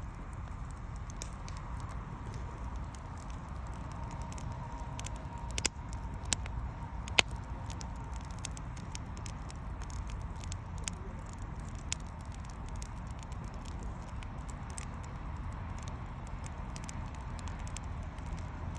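Wood bonfire crackling, with irregular sharp pops and snaps over a steady low rumble; a few louder pops come about a third of the way in.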